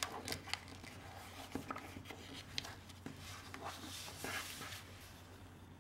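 Paper rustling and crackling faintly as it is folded and creased by hand against a table, with scattered small clicks and taps.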